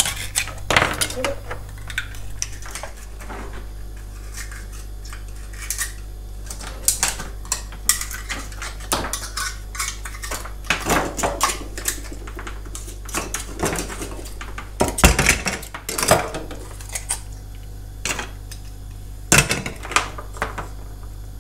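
Scallops being shucked with knives: shells and blades clicking and scraping against each other and against a metal baking tray of cockles, in irregular clatters, with the loudest knocks about fifteen seconds in.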